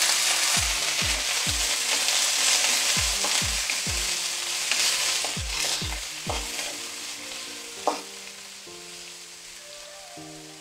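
Tinapa (smoked fish) sizzling in hot oil in a wok with ginger, onion and garlic, stirred with a spatula. The sizzle is loudest at first and slowly dies down, with one sharp knock about eight seconds in.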